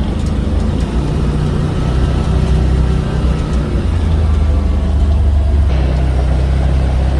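A farm vehicle's engine running steadily while it tows a palm kernel feed load over the paddock, with a low drone. The engine note changes a little over five seconds in.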